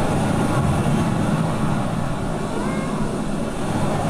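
Steady rush of surf on a beach, a continuous even wash of noise with a low rumble.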